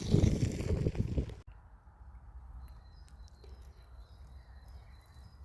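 Wind buffeting the microphone for about a second and a half, then cutting off suddenly. After that, faint outdoor quiet with small high bird chirps and a thin, steady high whistle.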